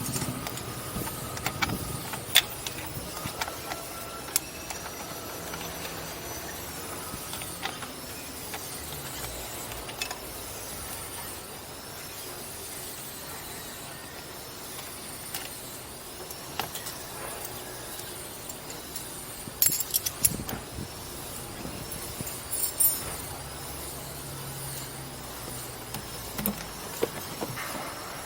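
Mitsubishi 4G64 engine running at idle with a low steady hum. Scattered sharp metallic clicks and clinks sound over it, with a brief cluster of louder clinks about two-thirds of the way through.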